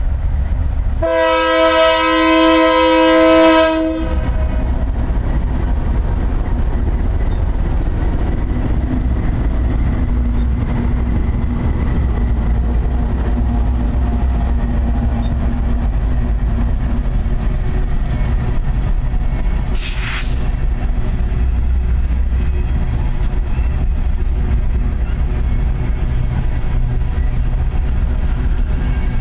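Union Pacific coal train passing at close range. The lead locomotive sounds its air horn, a chord of several notes held for about three seconds, about a second in. Then the diesel locomotives and the coal hopper cars rumble and clatter steadily by on the rails, with a brief hiss about twenty seconds in.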